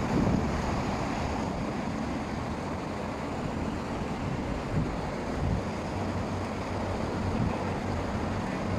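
Steady outdoor background noise: wind buffeting the phone's microphone over a low, steady hum.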